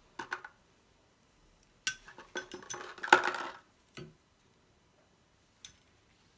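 Light clinks and taps of small metal and plastic faucet parts and tools being handled at the valve body, in a few short clusters, busiest from about two to three and a half seconds in.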